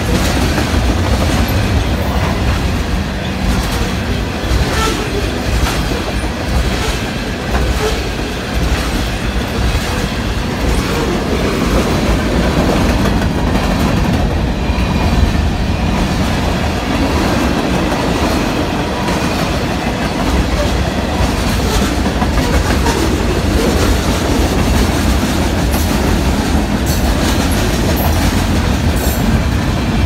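Freight train of tank cars and covered hoppers rolling past, a steady heavy rumble with the wheels clacking over rail joints.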